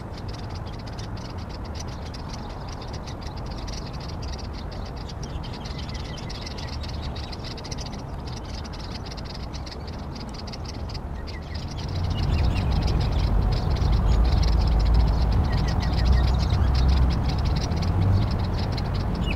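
A steady, fast-pulsing animal chorus with a few faint short chirps. A low rumble comes up about twelve seconds in.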